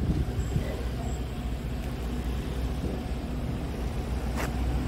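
Scania R410 tractor unit's diesel engine idling with a steady low rumble. A brief sharp hiss sounds about four seconds in.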